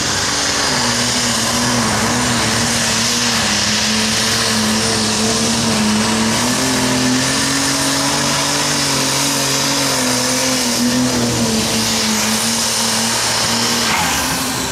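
Super Stock pulling tractor's turbocharged, methanol-fuelled engine running flat out under load while pulling the weight sled: a loud, steady engine note that wavers a little in pitch, with a thin high whistle over it. The engine note falls away near the end.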